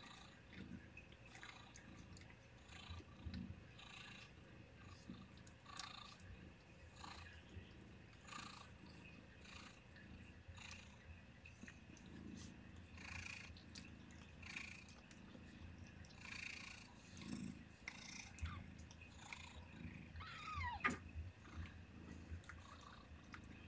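Cat purring, a faint steady low rumble, with soft wet licking and rustling as newborn kittens are licked and pottied. Near the end a newborn kitten gives one short high squeak that falls in pitch.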